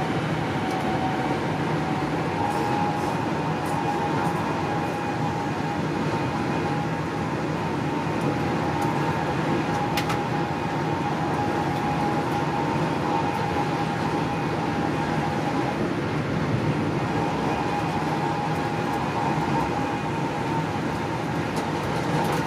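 Interior of an HST (InterCity 125) Mark 3 passenger coach running at speed: a steady rumble of wheels on the rails and running noise, with a constant whine over it. One faint click about ten seconds in.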